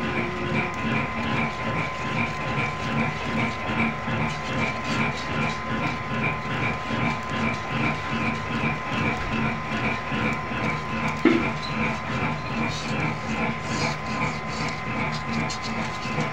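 Wire whisk beating a chocolate cream in a bowl: an even, rhythmic swish and clink at about three strokes a second, over a steady hum. One sharper knock about eleven seconds in.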